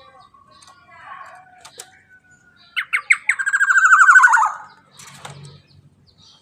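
Black-naped oriole (kepodang emas) calling: a few short sharp notes about three seconds in, then a loud, fast rattling phrase that falls slightly in pitch and stops after about a second and a half. Faint scattered chirps are heard around it.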